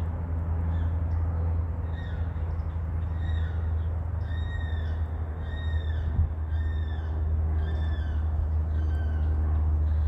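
A bird calling a run of about eight short, arched notes, evenly spaced at roughly one and a half a second, starting about two seconds in and stopping near the end. A steady low rumble runs beneath and is the loudest sound.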